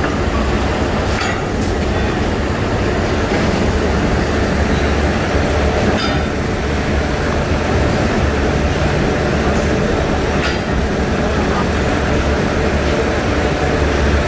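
Steady loud rumble and low hum of steel rolling mill machinery, with a few sharp metallic knocks as steel billets are handled.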